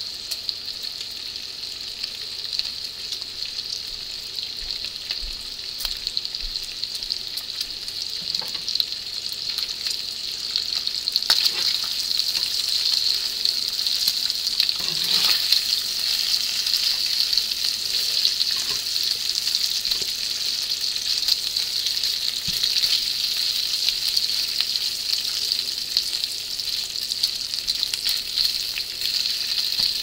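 Bacon strips frying in a cast-iron skillet: a steady sizzle that grows louder about ten seconds in. Occasional light clicks come from metal tongs touching the pan as the strips are turned.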